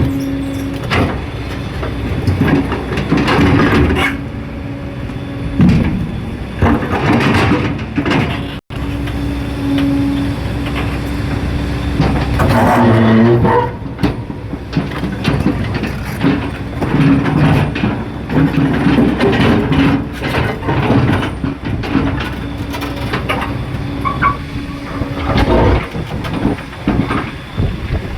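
Heavy machinery running, a loud engine-like rumble with a steady hum that comes and goes, broken by a sudden cut about nine seconds in.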